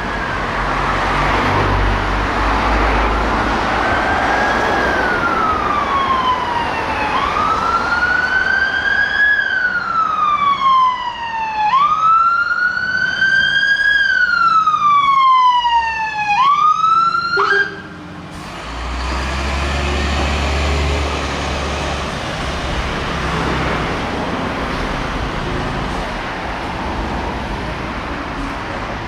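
UK fire engine (hydraulic platform) sounding a two-tone-free wail siren that sweeps slowly up and down, one rise and fall about every four to five seconds, growing louder as it approaches. The siren cuts off suddenly about two-thirds of the way through, and the truck's diesel engine rumbles as it passes and drives away.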